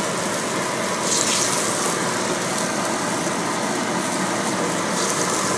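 Pork and potato cubes cooking in a little liquid in a wok over a gas flame, giving a steady sizzling hiss.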